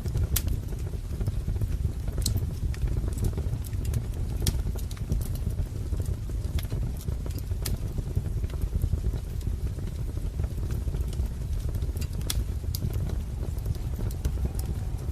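Wood fire crackling: a steady low rumble of burning firewood with scattered sharp pops and crackles.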